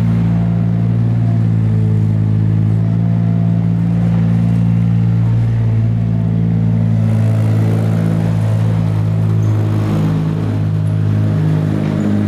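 Tractor engine running steadily at a constant speed, with a slight change in its tone a little past halfway.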